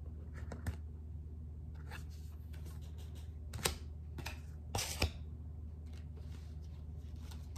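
Tarot cards being handled and set down on a desk: a few light clicks and rustles, loudest about halfway through, over a steady low hum.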